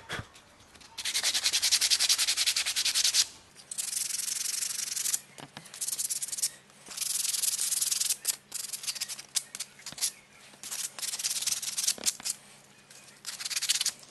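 Coarse sandpaper rubbed by hand over a carved wooden spoon in quick back-and-forth strokes, in spells of a second or two with short pauses between, and a few light clicks as the grip shifts.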